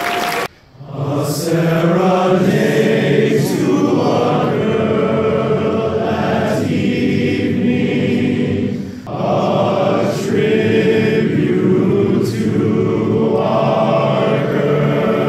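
Applause cut off abruptly half a second in, followed by a large group of voices singing together as a choir in long, sustained phrases, with short breaks about six and nine seconds in.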